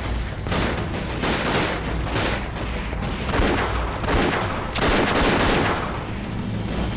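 Sustained gunfire in a film gunfight: many shots overlapping in rapid volleys, with louder bursts about a third of the way in and again just past the middle.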